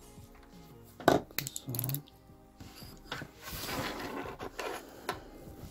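Graphite fly reel's spool being fitted back onto the reel frame: a sharp click about a second in as the parts meet, then a couple of seconds of rubbing and small clicks as the spool is worked into place.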